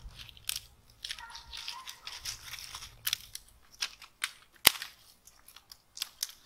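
Dry leaves rustling and crunching and small twigs cracking as fallen sticks are picked up from leaf-covered ground, with one sharp snap about three-quarters of the way through.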